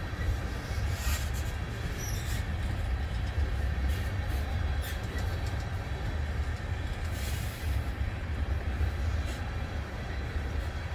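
Freight train of loaded tank cars rolling past with a steady low rumble of wheels on rail. Several short, sharp wheel squeals and clanks cut through it, the longest about seven seconds in.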